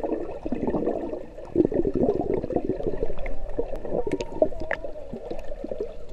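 Muffled gurgling and bubbling of pool water heard underwater, with a swimmer exhaling air bubbles through her nose.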